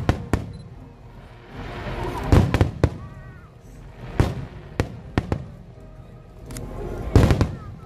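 Aerial fireworks shells bursting in a rapid string of sharp bangs, with the two loudest clusters about two and a half seconds in and near the end, each preceded by a swelling rush.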